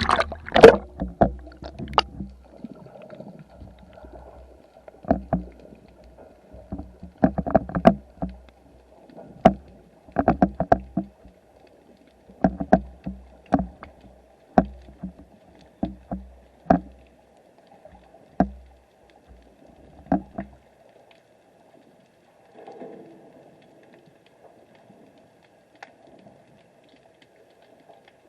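Sound picked up by an underwater camera: irregular sharp knocks and clunks, one every second or so, over a faint steady hum and low water rumble. The knocks stop about twenty seconds in.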